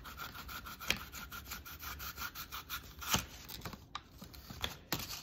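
Small kitchen knife slicing through a whole red apple: a run of short scraping strokes as the blade works through the fruit, with a few sharper clicks about a second in, at about three seconds and near the end.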